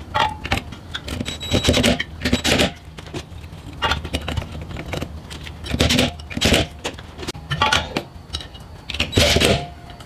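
Metal clinking and rattling in irregular short bursts as screws and metal parts of a ceiling fan are handled and tightened.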